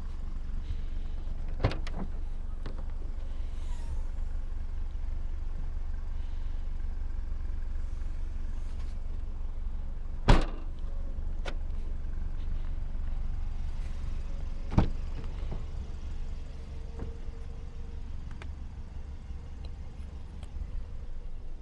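A vehicle's steady low rumble, with three sharp knocks: one about two seconds in, the loudest about ten seconds in, and another near fifteen seconds.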